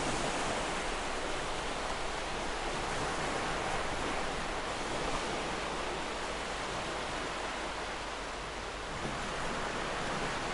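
Ocean surf on a beach: waves breaking and washing up the sand as a steady rushing noise, easing a little late on and swelling again near the end.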